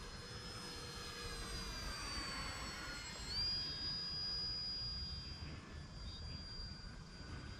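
High whine of radio-controlled model airplanes' electric motors and propellers flying overhead. The pitch sags, then jumps up sharply about three seconds in and holds steady.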